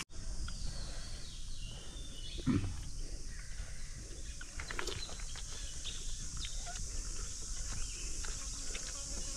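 Steady high buzz of insects, with scattered small clicks and one short voice-like call about two and a half seconds in.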